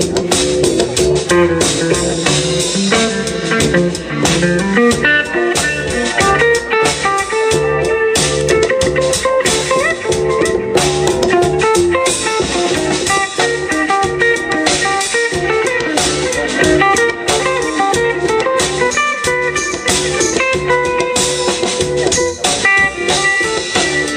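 Live band playing a blues-style instrumental intro: guitar lines over a steady drum beat, with no singing.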